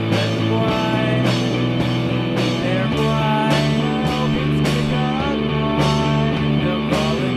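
Rock background music with guitar and a steady beat.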